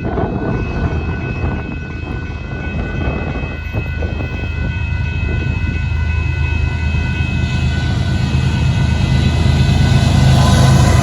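Diesel locomotives of a freight train approaching, led by a GE AC4400CW: a steady low engine rumble that grows louder throughout, with a faint steady high whine above it that fades out about two-thirds of the way through.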